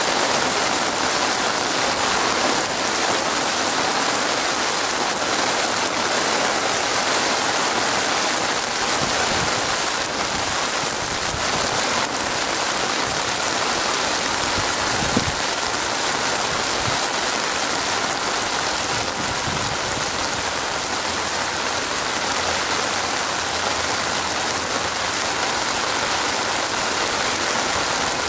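Steady heavy rain falling on a wet, water-covered surface: a dense, even hiss of drops, with one brief louder tap about fifteen seconds in.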